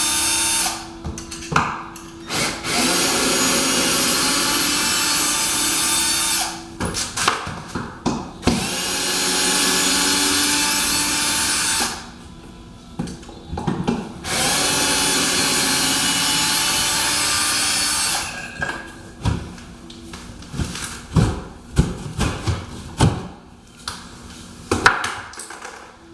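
Cordless drill/driver running in several steady bursts of a few seconds each, backing out the screws that hold a wooden wall fire block. In the last third it gives way to scattered knocks and clatter of wood.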